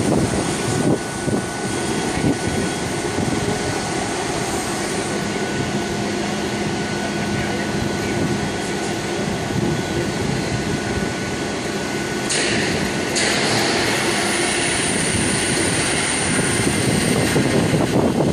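Steady drone of heavy shipyard machinery with a faint constant whine. About twelve seconds in the sound shifts, turning hissier and a little louder.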